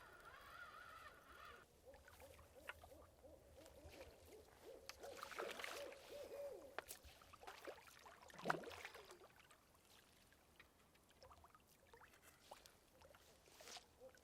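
Faint wavering animal calls in near silence, with one short, sharper sound about eight and a half seconds in.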